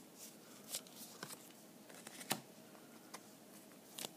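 Pokémon trading cards being handled and flicked: faint scattered clicks, about six in four seconds, the sharpest a little past two seconds in.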